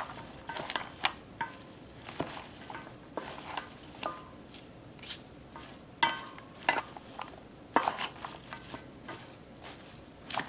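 Salad being tossed with chopsticks and a spoon in a stainless steel bowl: irregular clinks and taps on the metal bowl, some ringing briefly, over a soft rustle of the sliced apple and leaves.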